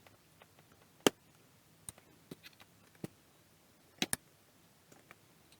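Scattered sharp clicks and light taps, seven or eight in all, the loudest a little after a second in and a quick double click around four seconds: a wiring-harness connector and plastic panel parts being handled and plugged in by hand.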